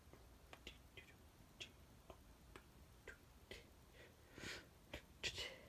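Near silence with faint, irregular little clicks and ticks and a couple of soft rustles near the end, typical of handling noise from a phone being moved about over a bedspread.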